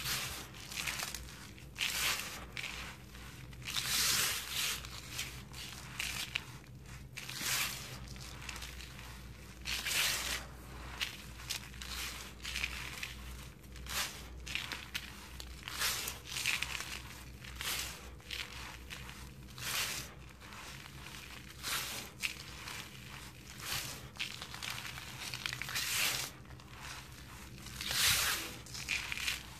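Hands crushing and crumbling dry, powdery sand-and-cement mix, a gritty crunching that comes in irregular bursts about every second or two.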